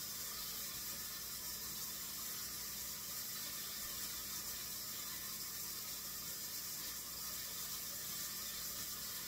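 Kitchen tap running steadily into the sink as raw chicken legs are rinsed under it.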